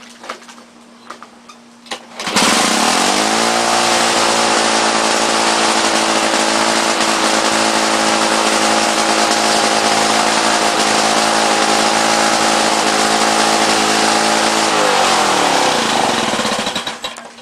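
1993 Lawn-Boy 10201 mower's two-stroke engine catching about two seconds in and running at a steady speed with its governor freshly adjusted, after a carburettor bowl cleaning. Near the end it slows, dropping in pitch, and stops.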